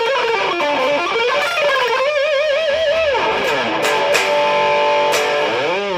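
1987 Kramer Pacer electric guitar played solo through an overdriven Marshall DSL-1 amp with a Dirty Shirley drive pedal, with no backing track. It plays a lead line with wide vibrato and a note bent down about three seconds in, then held ringing notes, and near the end a swoop in pitch up and back down.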